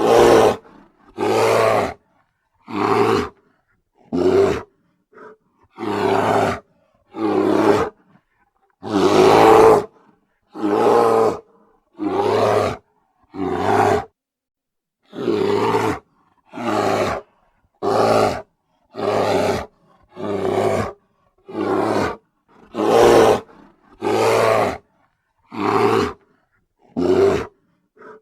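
Bear roaring over and over: a long string of short roars, about one every second and a half, each ending abruptly in silence.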